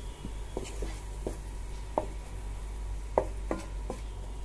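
Wooden spatula knocking and scraping against a frying pan while stirring frying masala: about eight short, irregular knocks over a faint steady hum.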